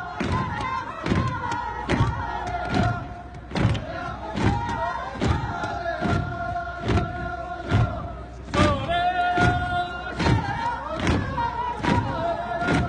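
Earth being stamped into wall formwork by a large crowd of workers: rhythmic thuds about twice a second, under the group chanting a work song in long held notes.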